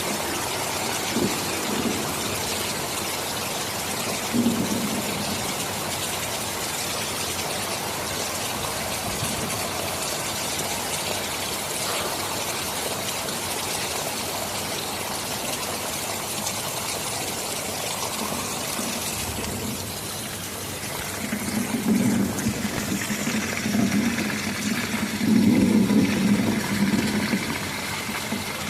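Steady heavy rain falling, with rolling rumbles of thunder about two-thirds of the way through and again, loudest, near the end.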